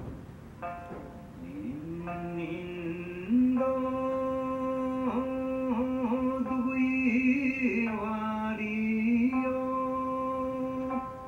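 A Yonaguni Island lullaby: one voice singing slow, long held notes that slide from pitch to pitch, over a plucked string instrument.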